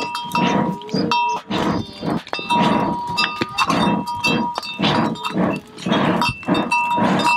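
Traditional hand-pumped forge bellows puffing air in a steady rhythm, about two puffs a second, with a high ringing tone coming and going over it.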